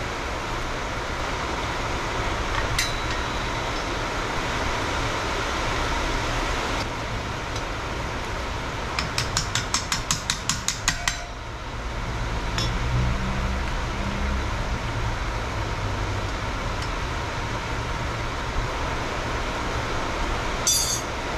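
Hand tools working on metal while a motorcycle front wheel is fitted: a few scattered metal clinks and, about nine seconds in, a quick even run of about a dozen clicks over two seconds, over a steady background hum.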